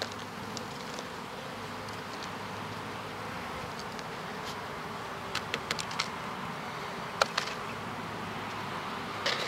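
Honeybees buzzing steadily around an open hive. A few sharp ticks come about five to six seconds in, with a louder one a little after seven seconds.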